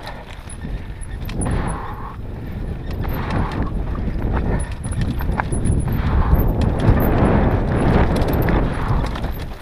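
Mountain bike clattering and rattling down a rocky singletrack, tyres hitting loose stones and the bike's parts knocking with each bump. It grows louder and busier about six seconds in.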